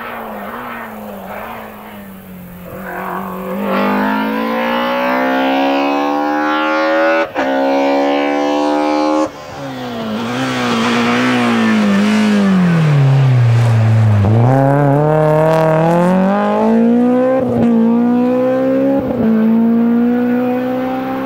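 BMW E30 M3 competition car's four-cylinder engine at full throttle, its pitch climbing hard with a short break at a gear change, then falling away and climbing again as it comes back on the power.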